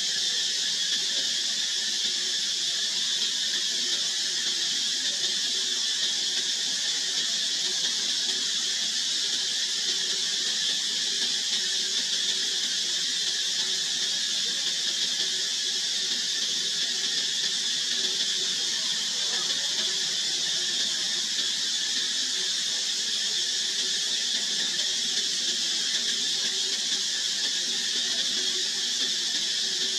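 Steady high-pitched drone of insects, unchanging throughout.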